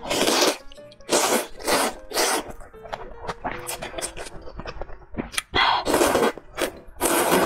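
Noodles being slurped loudly from a bowl of spicy noodle soup, in short bursts: a run of three in the first few seconds, then more near the end, over background music.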